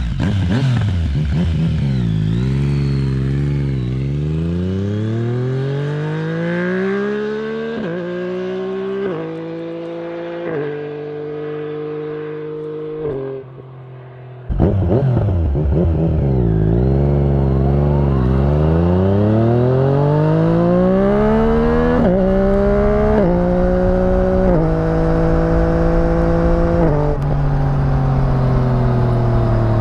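Yamaha MT-09's three-cylinder engine through an aftermarket full exhaust, accelerating through the gears twice: the pitch climbs and drops back at each upshift. There is a short quieter gap about halfway through before the second run starts suddenly.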